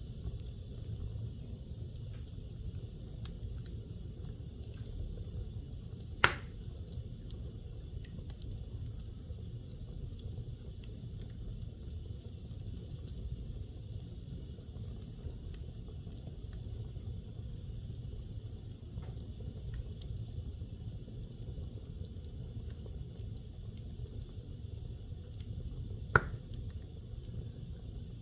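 Wood fire burning in a fireplace: a steady low rumble of the flames with small crackles, and two sharp loud pops, one about six seconds in and one near the end.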